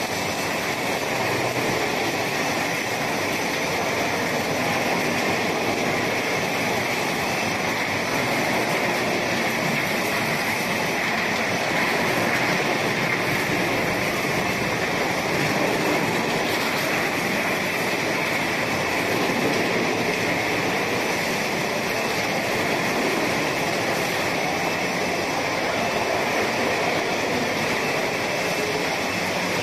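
Chapati and tortilla production line machinery running, a steady even mechanical noise with no breaks or changes.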